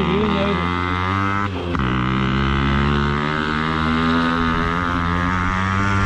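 Yamaha RX100's air-cooled two-stroke single-cylinder engine running under load as the bike climbs a steep dirt lane. It breaks off briefly about one and a half seconds in, then its pitch climbs slowly.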